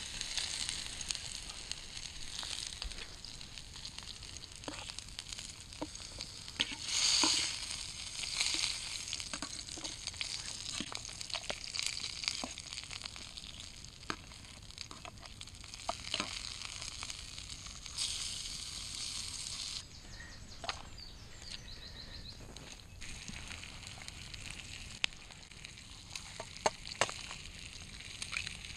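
Slices of cured French saucisson frying in oil in a pan, sizzling steadily with scattered pops and spits. The sizzle swells to a louder burst about seven seconds in and turns quieter after about twenty seconds.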